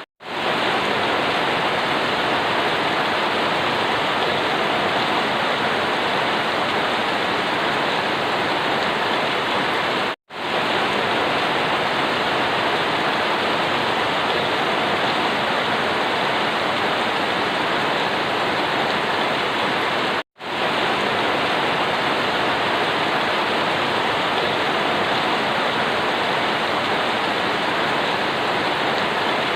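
Steady, even rain, a dense unbroken hiss that drops out to silence for a split second three times, about ten seconds apart.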